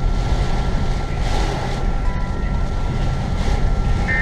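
Interior of a car driving in heavy rain: steady road and engine rumble with rain on the car and the windshield wipers sweeping.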